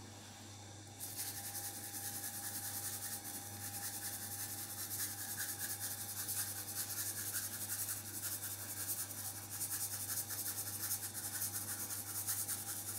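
Cane sugar being sprinkled by hand onto a milk-brushed pie crust: a steady, fine rasping patter of falling grains that starts about a second in.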